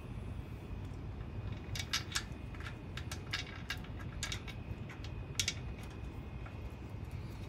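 Light metallic clicks and taps from a breather bolt being handled and fitted by hand at the cylinder head. The clicks are irregular and bunched between about two and five and a half seconds in, over a steady low hum.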